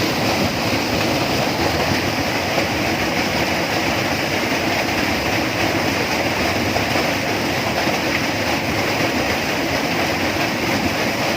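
Tropical rainforest ambience: a steady, dense wash of noise with no single event standing out.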